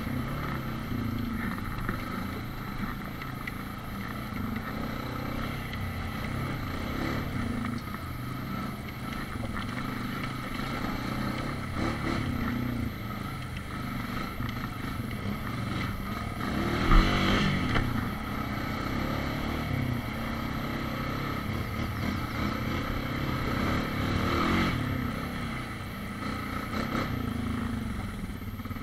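ATV engine running steadily as the quad rides over a rough trail, with one sharp knock about halfway through and the engine getting louder for a moment near the end.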